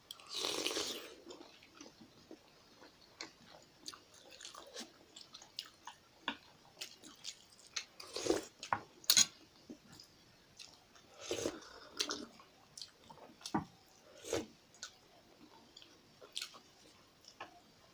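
Close-miked chewing and wet mouth sounds of someone eating soupy momo dumplings, with scattered small clicks, a louder slurp in the first second and a few more slurps through the rest.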